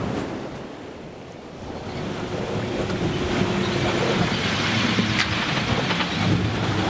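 Wind buffeting the microphone and the sea rushing past the hull of a sailing yacht under way in rough water, building to a steady rush about two seconds in.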